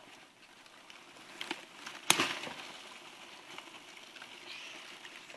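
Cardboard shipping box being cut open and handled: scattered clicks and crackling, with one sharp knock about two seconds in.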